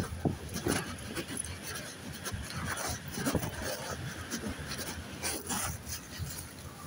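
A dog panting, amid irregular rustles and light knocks.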